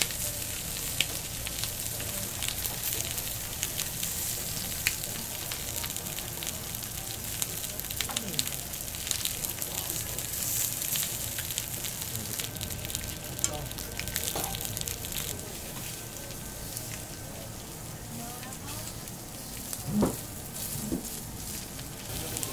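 Raw lamb sizzling on a hot Genghis Khan grill pan: a steady spitting hiss with scattered sharp pops of fat.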